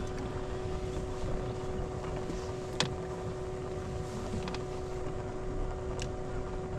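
Electric trolling motor humming steadily as the bass boat creeps along, over low wind buffeting on the microphone. A single sharp click sounds near the middle.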